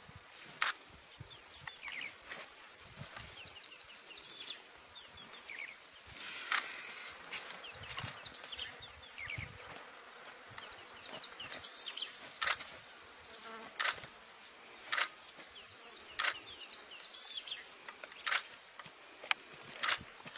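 Outdoor field sound with a faint high hiss and clusters of short, high, gliding bird chirps. About ten sharp knocks or scuffs are scattered through it.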